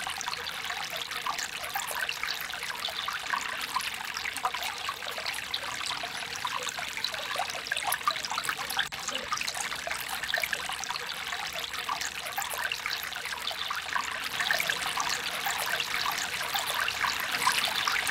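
Shallow stream water trickling and splashing over rocks, steady throughout, with a little more splashing near the end.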